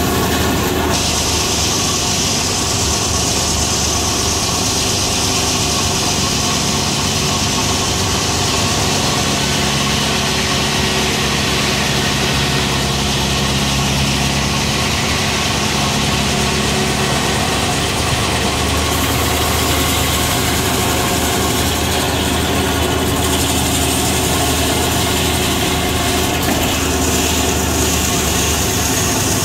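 Circular sawmill running steadily under engine power, its large head saw blade cutting through an ash log. A bright hiss from the cut starts about a second in and eases off at around eighteen seconds, leaving the steady engine and the spinning blade.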